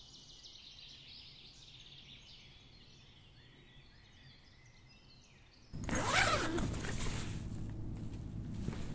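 Quiet forest ambience with birds chirping faintly and high-pitched. About six seconds in, a sudden loud film transition sound swells in with a falling pitch, followed by a low steady hum and a few soft knocks.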